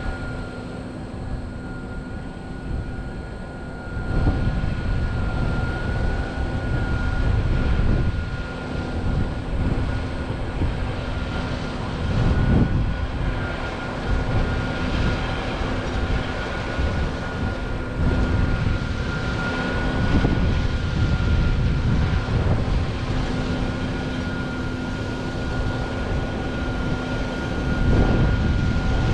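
John Deere 9500 combine with its six-cylinder turbocharged diesel engine running under harvesting load: a steady low drone with a constant high whine over it, getting louder about four seconds in and then rising and falling a little.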